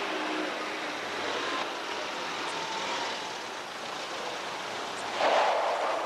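A vintage convertible car driving past over grass: a steady rushing of engine and tyres that swells loudest for a moment about five seconds in as it passes close.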